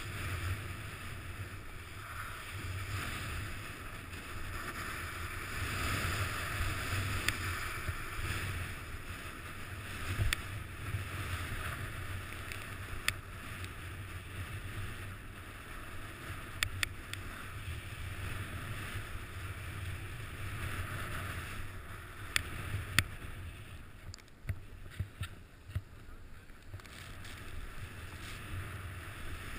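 Steady hiss and scrape of a ride sliding down groomed snow, with low wind rumble on the microphone and occasional sharp clicks.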